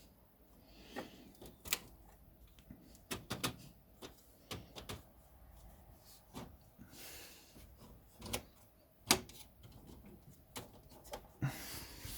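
Scattered sharp clicks and clunks of plastic and metal parts being fitted back into an HPE ProLiant DL380 Gen9 server chassis, with a few brief rustles of handling between them; the loudest click comes about nine seconds in.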